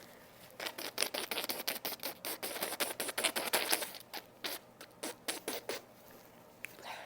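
Paper tissue crinkling as it is handled, a rapid, irregular crackle lasting about five seconds that thins out and stops near the end.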